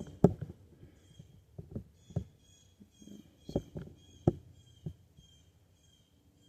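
Scattered light knocks and clicks of hands working on a bicycle, fading out after about five seconds, over faint short high chirps repeating about twice a second.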